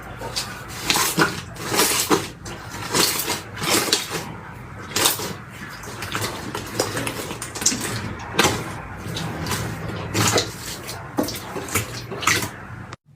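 Slime being squished and worked by hand: irregular wet squelches and crackles, one or two a second, cutting off suddenly near the end.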